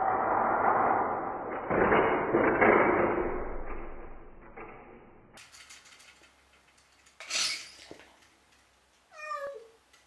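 A loud rushing noise without a clear pitch fades away over the first four seconds; about seven seconds in comes a brief noisy burst, and near the end a domestic cat gives one short meow that falls in pitch.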